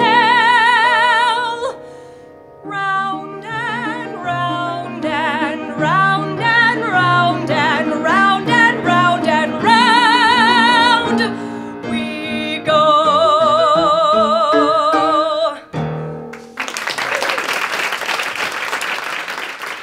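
A woman sings the last phrases of a musical theatre song with a wide vibrato on long held notes over instrumental accompaniment. The song ends about three-quarters of the way through, and audience applause follows.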